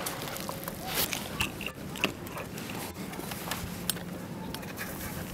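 Faint, irregular scattered clicks, crackles and rustles, as of movement through dry brush and stalks.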